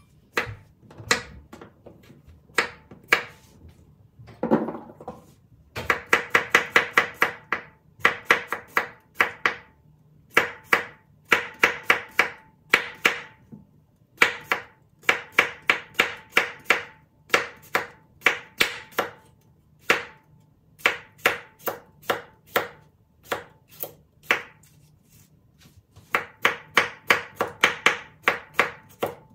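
Kitchen knife cutting cucumbers on a wooden cutting board: a few separate knocks as the ends are trimmed off, then quick runs of blade knocks on the board, several a second with short pauses, as the cucumber is sliced thinly.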